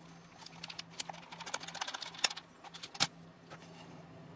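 Small scattered clicks and light scraping of a screwdriver and a steel pick working against the plastic housing and face of a speedometer, with a couple of sharper clicks about two and three seconds in.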